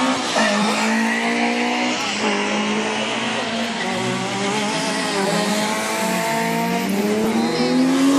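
Rally car engines revving hard as the cars race past, the pitch climbing and then dropping sharply at each gear change, with a long rise near the end.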